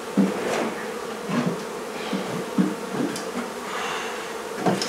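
Honey bees buzzing in a steady drone, with a few short louder swells as the sound rises and falls.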